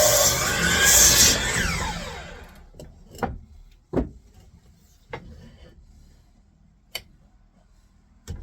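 Miter saw motor running, then spinning down with a falling whine from about a second and a half in, followed by a few scattered knocks.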